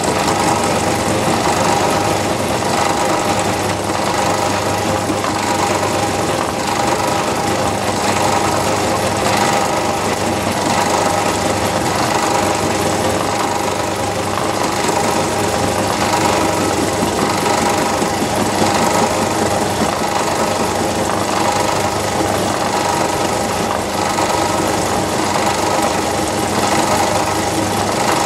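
Myford lathe running a milling cutter in its chuck, cutting into a Dixon quick-change tool holder that is fed slowly by hand on the cross slide. Steady machining noise that does not change throughout.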